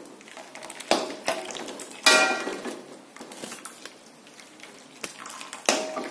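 Metal strainer and utensil knocking against a metal wok while boiled noodles are lifted out and shaken: three sharp clanks, about one, two and nearly six seconds in, the one at two seconds loudest and ringing briefly, with small scraping clicks between.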